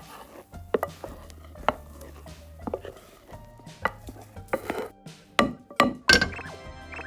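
A series of sharp, irregular kitchen taps and knocks, like utensils striking a cutting board or bowl, coming closer together in the second half, over soft background music.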